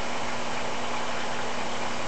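Aquarium pump running: a steady low hum over an even hiss.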